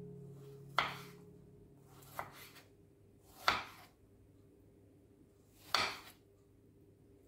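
A knife slicing through fresh strawberries and striking a wooden cutting board: four separate cuts a second or two apart, the one near the middle loudest.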